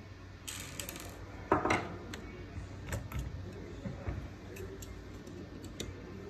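Light metal clinks and knocks as the steel side frame of a copier fuser unit is handled and lifted off by hand, with one louder knock about a second and a half in.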